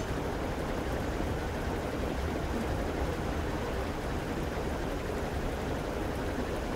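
Thick spiced gravy simmering around a whole chicken in a frying pan, a steady bubbling.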